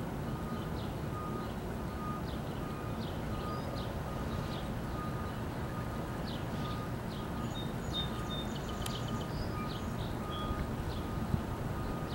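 Songbirds chirping repeatedly over the steady low rumble of a distant diesel passenger train approaching. A faint high tone repeats in short, evenly spaced pulses throughout.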